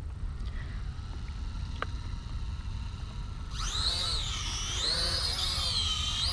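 Low wind rumble on the microphone, then about three and a half seconds in the Syma X5UW toy quadcopter's small electric motors and propellers spin up with a high whine that rises and wavers in pitch as it lifts off.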